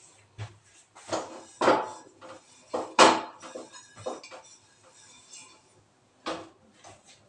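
Metal pressure cooker pot clanking and knocking against the gas stove's burner grate as it is lifted, tilted and set back down. It makes a string of sharp metallic clanks, the loudest about three seconds in, and one more near the end.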